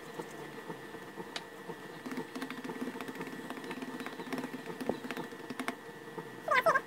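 Light scattered taps and clicks of hands pressing and flattening a piece of yeast dough on a glass cutting board, over a faint steady hum.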